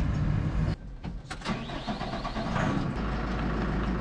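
Farm tractor engine running, cut off abruptly under a second in, then a few sharp clicks and a quieter engine sound that settles into a steady low hum near the end.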